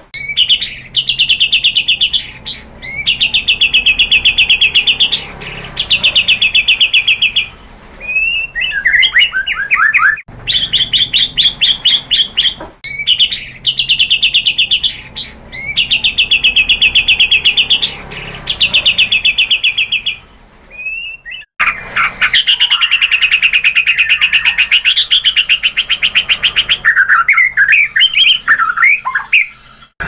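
White-rumped shama (murai batu) singing loudly: long runs of very fast, rattling repeated notes, broken by short gaps and by brief phrases of quick, varied whistled notes.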